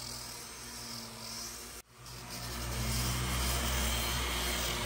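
Electric sanders running on a fibreglass boat deck: a steady motor hum. It drops out suddenly just under two seconds in, then comes back with a louder low rumble.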